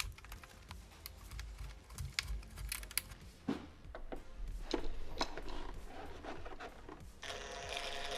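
Scattered light clicks and taps of parts and tools being handled, then about seven seconds in an electric drill starts running steadily to drill new mounting holes.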